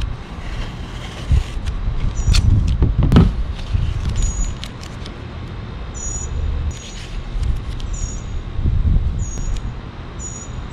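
Blue painter's tape being pulled off the roll and pressed onto a van's sheet-metal roof, with sharp crackles about two to three seconds in, over an uneven low rumble. Short high chirps repeat about once a second from around the middle.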